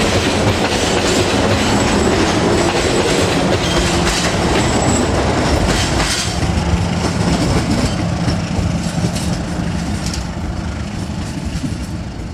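Local passenger train pulling away: wheels clattering over the rail joints and carriages rattling, with brief high wheel squeals in the first few seconds. A steady low hum sets in about halfway, and the whole sound fades as the last coach moves off.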